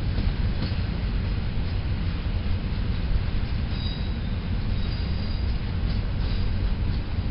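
Passenger coaches of a departing long-distance train rolling away over the station tracks, with a steady low rumble. A faint high wheel squeal comes in about halfway through, and a few clicks of the wheels over rail joints are heard.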